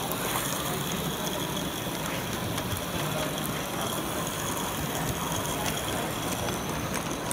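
A small live-steam model locomotive running on its track: a steady hiss of steam with light, scattered clicking from the wheels and motion.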